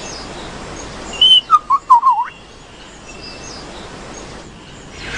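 Male superb lyrebird singing: a quick run of whistled notes that bend up and down, about a second in, over a faint background hiss.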